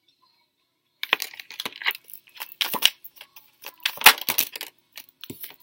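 Tarot cards being handled and laid on a wooden table: quick, crisp card taps and flicks, starting about a second in.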